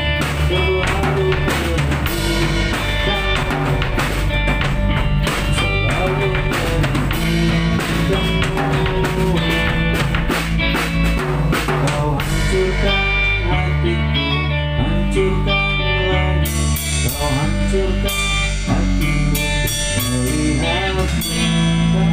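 Live pop-rock band playing: drum kit, electric guitar, bass guitar and keyboard. About halfway through, the cymbal wash drops away and the drumming thins to sparser hits.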